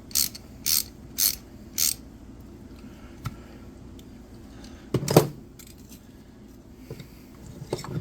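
Ratchet wrench working a screw loose: four short ratcheting strokes about half a second apart, then a single louder clunk about five seconds in.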